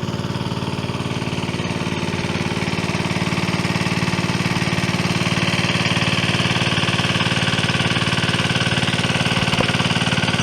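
Small engine-driven water pump running steadily while it pumps creek water through hoses to fill the AquaDam tubes, with a hiss that grows stronger about halfway through.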